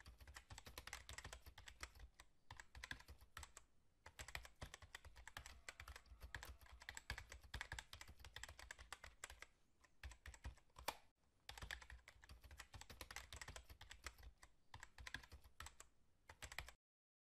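Faint, rapid clicking of typing on a computer keyboard, in runs broken by short pauses about two, four and eleven seconds in. It stops abruptly shortly before the end.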